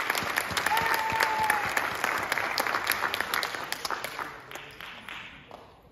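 Audience applauding, a dense patter of many hands clapping that thins out and fades away over the last two seconds.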